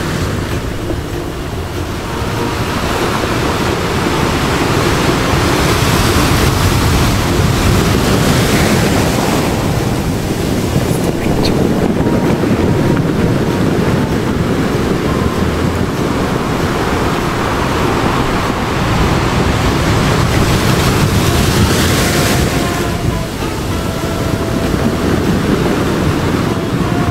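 Ocean surf sound effect: waves washing in and out, rising and falling in slow swells.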